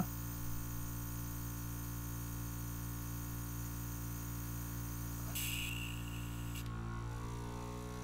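Mini airbrush compressor running with a steady electrical hum. About five seconds in, a hiss of air from the airbrush into its cleaning pot lasts just over a second.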